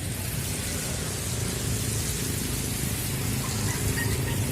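Rain falling steadily, with a low rumble underneath.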